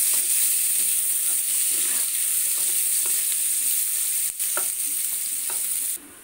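Sliced onions sizzling in hot oil in a frying pan, stirred with a spatula that scrapes and taps against the pan. The sizzling cuts off suddenly near the end.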